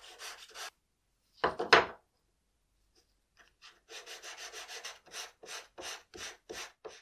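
Hand abrading wood in quick back-and-forth strokes, about four to five a second, with a pause broken by a loud double knock about a second and a half in; the strokes resume and slow near the end.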